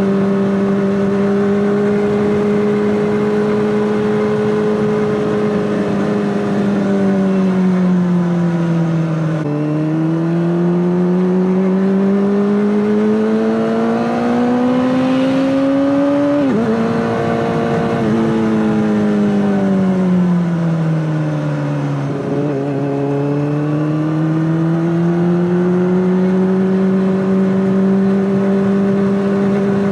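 Honda CBR600RR's inline-four engine through an Akrapovic exhaust, running at steady revs. The engine note sags, climbs to a peak a little past halfway, drops abruptly, sinks lower, then climbs back to its earlier pitch.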